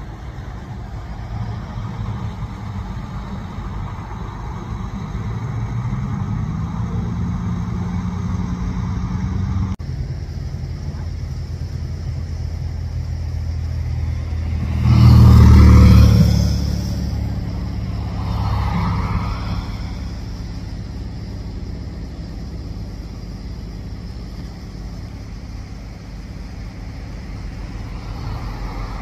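Vehicle engines running with a low hum that rises in pitch around six seconds in, and a loud rushing sound about fifteen seconds in.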